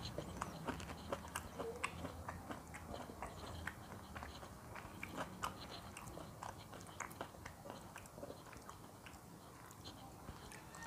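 A person chewing a meal of rice and fried tofu and tempe, eaten by hand: faint, irregular small clicks of chewing, close to the microphone.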